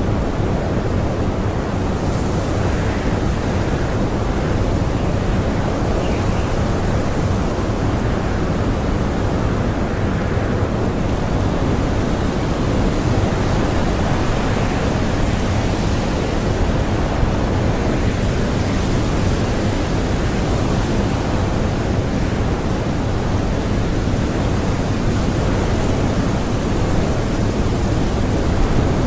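Blizzard wind blowing strongly and steadily, a dense rushing noise with the upper part swelling now and then as gusts come through.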